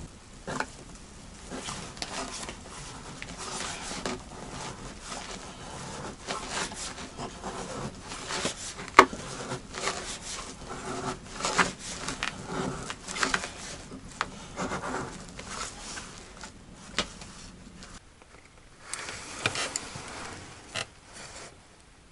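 Plastic bags rustling as food packets are handled on a table, with irregular scrapes and clicks and one sharp click about nine seconds in.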